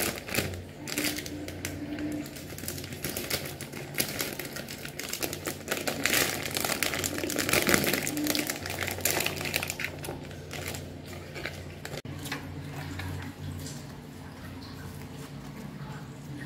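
Plastic food packaging crinkling and rustling as hands open an instant topokki pack with scissors and handle the sealed rice cakes. The crackling is dense for the first ten seconds or so and thins out after that.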